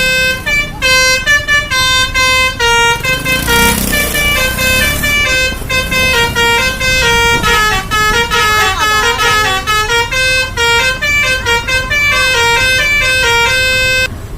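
Telolet basuri multi-tone musical horn on a Zep Trans bus playing a fast tune, its notes stepping up and down with short gaps between them, then cutting off just before the end. A rush of hiss rises under it about four seconds in.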